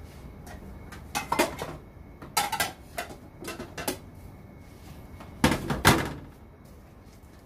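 Kitchenware being handled, a run of small clatters and knocks, then a plate set down on a stainless steel sink drainboard with two louder knocks toward the end.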